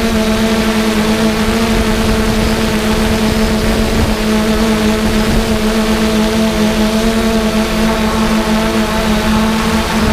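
3DR Solo quadcopter's four electric motors and propellers humming at a steady pitch in flight, heard from the drone's own mounted GoPro over a haze of wind noise. The hum falters briefly about four seconds in and again near the end.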